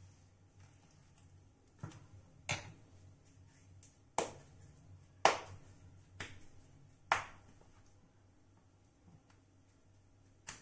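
A handful of sharp clicks and taps at uneven gaps, the loudest about five seconds in, from kitchen utensils being handled, over a steady low hum.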